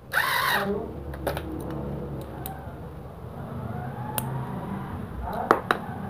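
A cordless electric screwdriver whirs briefly right at the start as it drives out a screw on the juicer's motor frame. Scattered clicks and clinks of the loosened metal motor parts being handled follow, with two sharp clicks near the end.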